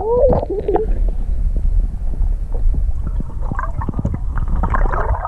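Water splashing and gurgling as a large barramundi kicks while held in the water beside a kayak for release, over a low wind rumble on the microphone. A short voice sounds in the first second.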